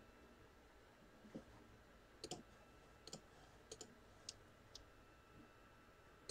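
Faint computer clicking: a few scattered sharp clicks, several in quick pairs, between about two and five seconds in.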